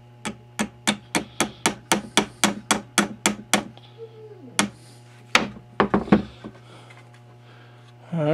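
Small ball-peen hammer tapping a thin metal pin through the pin hole in a wooden rifle stock and the barrel's tenon, an even run of light taps at about three to four a second that stops about three and a half seconds in. A few separate knocks follow about five to six seconds in, over a steady electrical hum.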